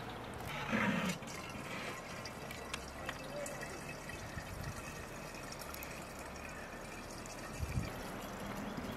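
Faint wet handling sounds of small fresh fish being split open and cleaned by hand, with light drips and ticks over a steady outdoor background hiss.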